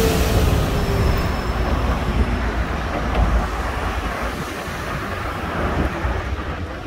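Road traffic: a car goes by close at the start, its pitch falling as it passes, then a steady rumble of engines and tyres from passing cars that slowly fades.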